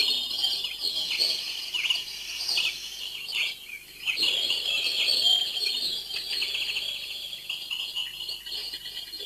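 A dense chorus of small birds chirping and twittering continuously, many short calls overlapping.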